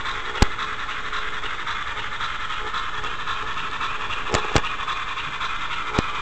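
Model train rolling along its track, heard from a camera car riding on it: a steady hissing rolling noise with four sharp clicks, two of them close together about four and a half seconds in, as the wheels cross rail joints.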